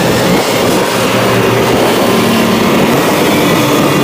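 Two Kubota DC70 Plus tracked combine harvesters, diesel engines running steadily as the machines crawl along on their tracks.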